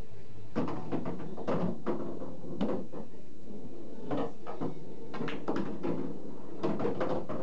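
Pool balls knocking and clacking on a pool table as shots are played: a string of about a dozen short, sharp knocks at irregular spacing, from the cue tip, the balls striking each other and the cushions, and balls dropping into the pockets.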